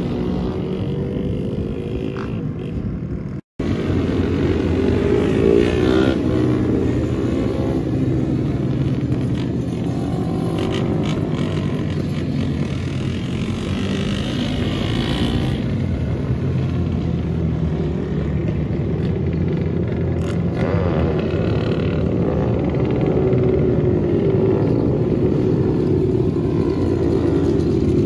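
Small single-cylinder minibikes running round a track together, their engines blending into a continuous drone that rises and falls as riders open and close the throttle. The sound cuts out for an instant about three and a half seconds in.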